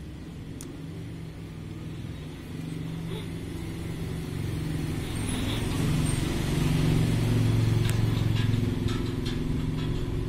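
Old Regency Tornado desk fan running, its electric motor humming steadily under the whoosh of the spinning blades, growing louder over the first several seconds. A few faint clicks near the end.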